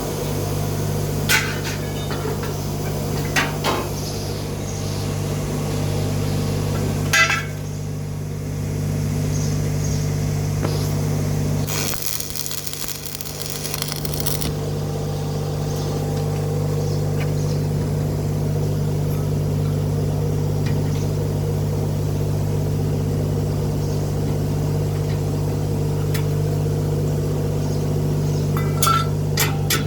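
Steady electrical hum from a machine, with a few short knocks and a burst of hiss about twelve seconds in.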